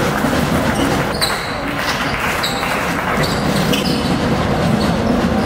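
Basketball being dribbled on a hall court, with several short high squeaks of sneakers on the floor over the steady noise of the hall.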